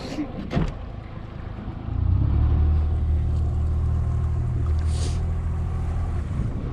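Small boat's outboard motor idling, then throttled up about two seconds in and held at a steady low hum before easing back near the end, as the boat is manoeuvred back toward a crab-pot float.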